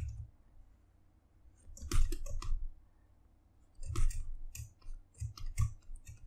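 Computer mouse and keyboard clicking in three short bursts of quick clicks with light desk knocks, as brush strokes are tested and the view is turned in the 3D sculpting program.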